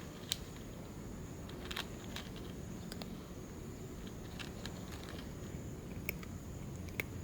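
A cat eating, with scattered sharp clicks and crunches as it chews, over a low steady background hum.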